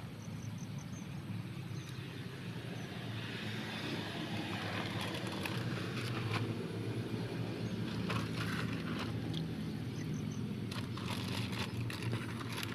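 A small engine running steadily as a low hum, with brief rustles now and then.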